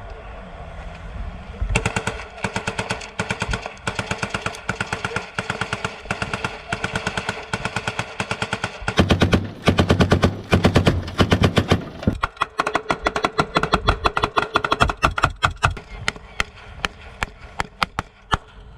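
Automatic machine-gun fire in long, rapid bursts, heaviest and loudest about halfway through, then sparser shots near the end, over a steady hum.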